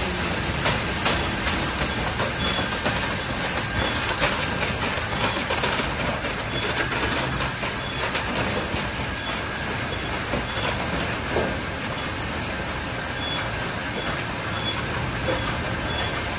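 Car wash tunnel machinery running: blue Neoglide foam wraparound brushes spinning and slapping against the car amid spraying water, a steady dense wash of noise.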